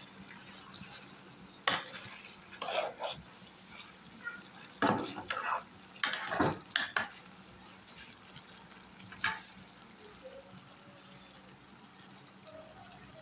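A perforated metal spatula scrapes and clinks against a metal cooking pan in several short, irregular strokes while a ridge gourd and salted fish curry is stirred. Underneath them is a faint steady sizzle from the reducing gravy.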